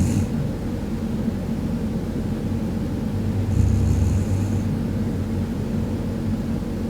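A sleeping woman snoring: a low rasping snore about once every four seconds, one trailing off at the start and another lasting about a second from roughly three and a half seconds in, over a steady low hum.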